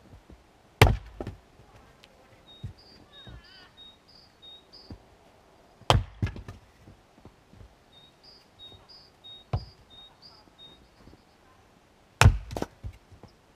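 Fiskars X25 splitting axe chopping firewood on a block: four sharp cracking strikes a few seconds apart, each followed by a few smaller knocks as the split pieces fall. Between the strikes come runs of short, evenly repeated high chirps.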